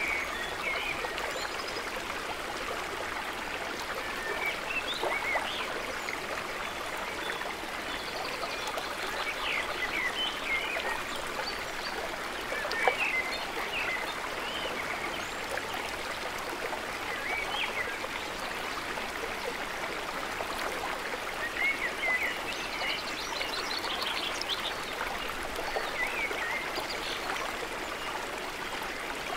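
A shallow stream rushing and burbling over rocks, with scattered short chirping calls over it and one sharp click near the middle.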